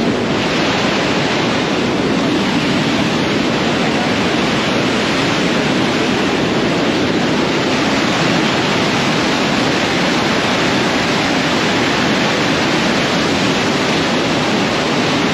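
River in flood: fast, turbulent brown floodwater rushing and churning along a bridge, a loud, steady rush of water.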